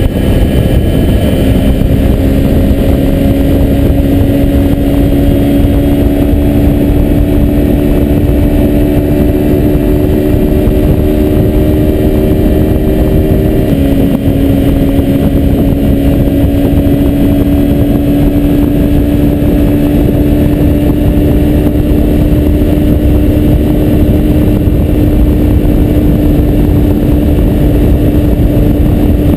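Kawasaki Ninja 250's parallel-twin engine pulling at freeway speed under heavy wind rush on the camera, its note climbing slowly. About halfway through the pitch drops suddenly with a brief dip in loudness, an upshift, and then climbs again.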